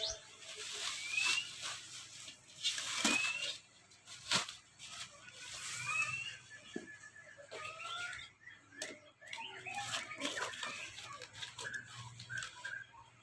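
Birds chirping in the background with short rising calls, busier in the second half, mixed with a few sharp knocks and rustles of cookware and packaging being handled.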